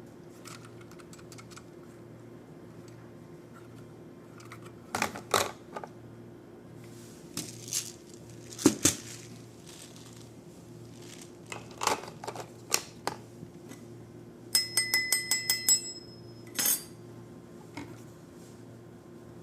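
Clicks and clacks of a toy Glock-style BB pistol being handled, its plastic and metal parts knocking together in scattered strokes. About two-thirds of the way through comes a quick run of about eight ringing clicks.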